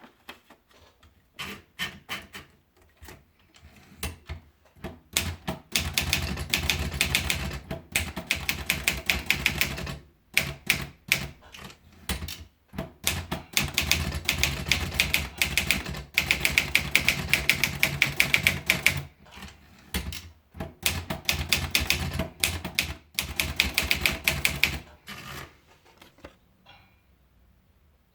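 Underwood 450 manual typewriter being typed on. A few scattered keystrokes come first, then long fast runs of key strikes with short pauses between them, and the typing stops a couple of seconds before the end.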